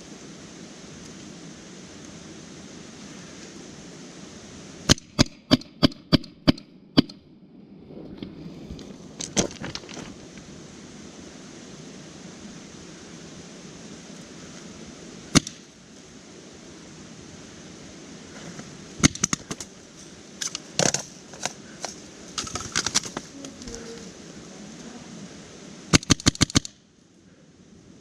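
Paintball marker firing in volleys with pauses between: a quick string of about seven shots about five seconds in, scattered single shots and small clusters after, and a rapid string of about five shots near the end.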